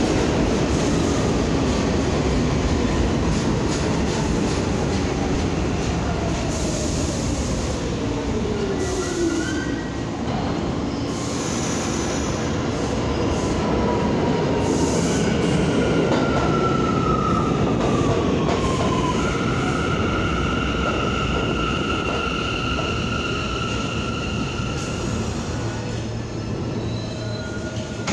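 New York subway trains running through an underground station as an R179 C train pulls in and brakes to a stop. There is a steady rumble, a falling whine in the first several seconds, and a long high squeal from the wheels and brakes in the second half as the train slows.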